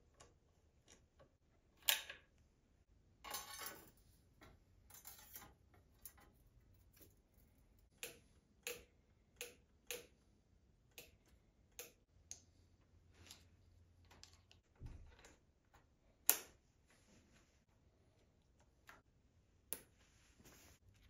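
Scattered light metal clicks and ticks from a hand key, bolts, rotors and pads being worked on a SRAM Maven four-piston brake caliper. A sharper click comes about two seconds in, a short rattle between three and four seconds, and the loudest click about sixteen seconds in.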